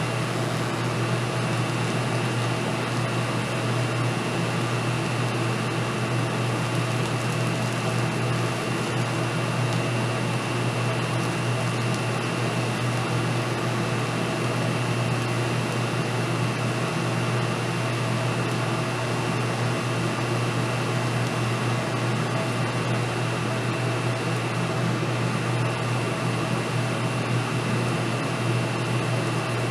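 A steady machine hum with a constant whir, unchanging in level, with no starts or stops.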